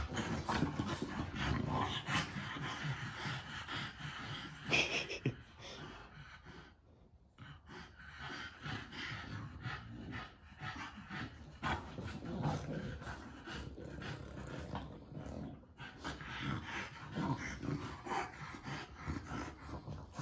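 French Bulldogs making dog noises. The sounds dip quieter about seven seconds in, then pick up again.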